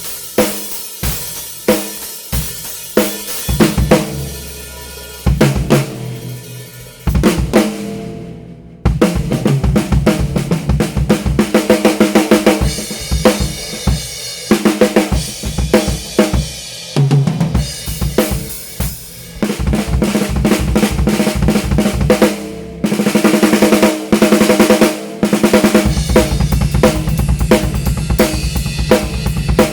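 Drum kit played in grooves and fills around a snare drum with a solid, hollowed-out Thai wood shell, with bass drum, hi-hat and cymbals. A short break comes about eight seconds in, and then the playing turns faster and denser, with quick runs of strokes.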